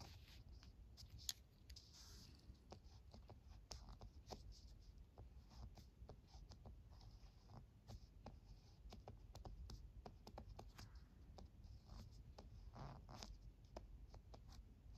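Ballpoint pen writing on paper: faint short scratches and small taps as each kanji stroke is drawn, with one sharper tick about a second in.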